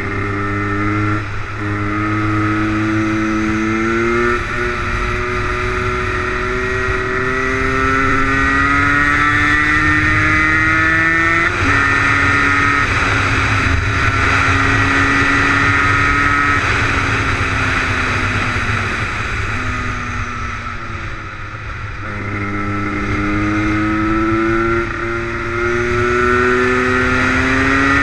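HM CRM 125 Derapage's two-stroke single-cylinder engine pulling hard through the gears, its pitch climbing and then dropping sharply at each upshift. A little after halfway it eases off and the pitch falls, then it pulls up through the revs again near the end.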